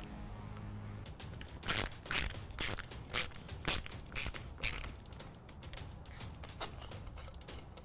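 End cap being unscrewed by hand from a titanium suppressor tube (TiON Grenadier 45), giving about seven sharp metallic clicks roughly half a second apart, then one fainter click.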